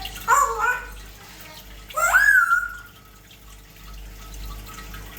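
African grey parrot whistling twice: a short call about a third of a second in, then a rising whistle about two seconds in that levels off and holds for about half a second.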